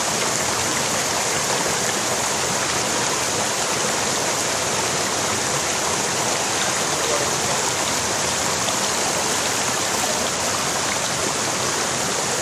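Rocky mountain stream flowing in small cascades over boulders: a steady, even rush of water.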